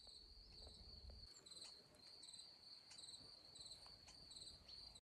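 Crickets singing faintly: a steady high trill with regular pulsed chirps about every two-thirds of a second. The sound cuts off suddenly just before the end.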